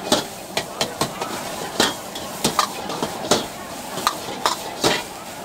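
A metal ladle and spatula clanking and scraping against a wok as egg fried rice is stir-fried and tossed, with sharp irregular strikes a few times a second. A steady frying sizzle runs underneath.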